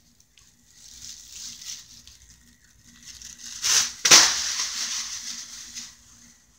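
Plastic shopping bag rustling as a ceiling fan running at its top speed whips it around, with two loud bursts close together about four seconds in.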